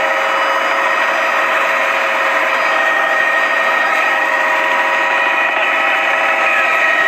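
Helicopter cabin noise in flight: a steady high whine made of several unchanging tones over a constant rushing noise.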